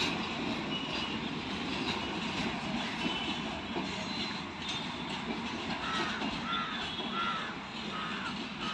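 A long freight train of covered goods wagons rolling past with a steady rumble. From about six seconds in, a crow caws over it, several short caws in a row.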